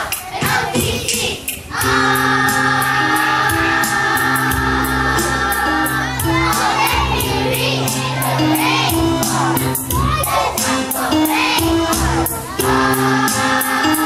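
A group of children sing a rap song together over backing music with a steady beat and held chords. The music comes in about two seconds in.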